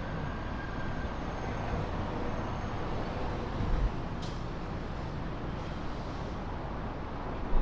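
Steady outdoor background noise, a low rumble and hiss, with a short low thump a few seconds in.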